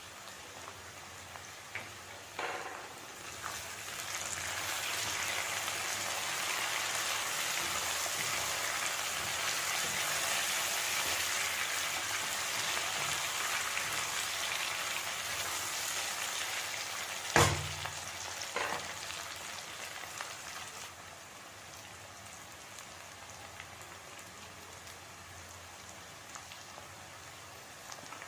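Food sizzling in hot oil in a pan, a steady hiss that swells a few seconds in and eases off again after about twenty seconds. A few sharp knocks are heard, the loudest just past the middle.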